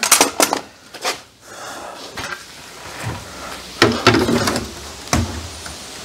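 Rough-sawn wooden boards knocking and clattering as they are handled and stood in place, with a handful of separate sharp knocks spread across the few seconds.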